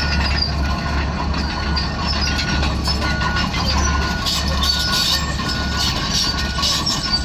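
Bulldozer running with a steady low diesel rumble, a warning beeper sounding about every three-quarters of a second, and steel tracks clanking and squealing, louder from about four seconds in.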